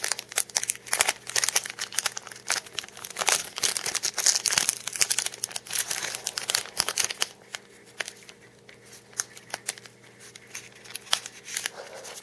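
A trading card pack wrapper being torn open and crinkled by hand. After about seven seconds the crinkling thins out to a few scattered soft clicks and rustles.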